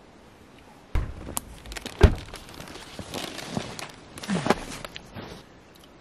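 A person handling clothing and gear at a truck: a thump about a second in and a louder one a second later, then rustling with light knocks.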